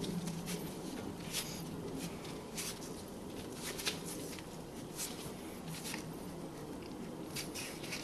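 Scattered light metallic clicks and scrapes as the front brake caliper of a 2010 Toyota Prius is worked down over freshly greased new brake pads, over a steady low hum.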